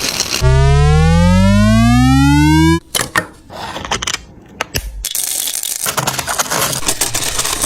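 A loud electronic rising tone lasting a little over two seconds, cutting off sharply. It is followed by a few clicks and then a stretch of scratchy, rustling noise.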